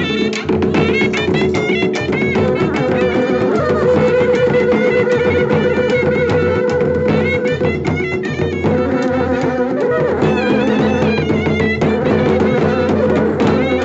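Traditional folk band playing: wind instruments carry a shrill, wavering melody over a held lower tone, with a steady, fast beat on small drums struck with sticks.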